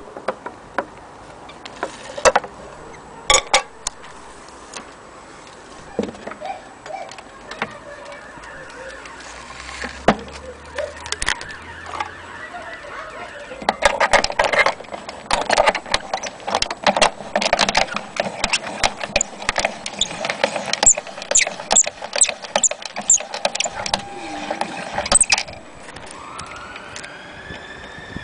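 Irregular clicks, knocks and rattles of metal parts handled on an antique gramophone's wooden case and motor board. They come sparsely at first, then fast and dense for about ten seconds, with a few short squeaks. Near the end a siren starts to rise.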